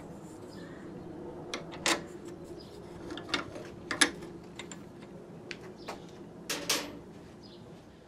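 Metal wrench clicking and tapping against the nut and steel cable clamp on a mower handle as the clamp nut is tightened: a handful of sharp, irregular clicks, the loudest about two and four seconds in, with a few more near seven seconds.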